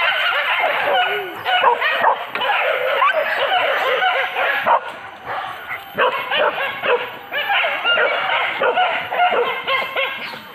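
A pack of hunting dogs yelping and barking excitedly, many voices overlapping almost without pause, with a brief lull about five seconds in. The dogs are giving voice on a wild boar hunt.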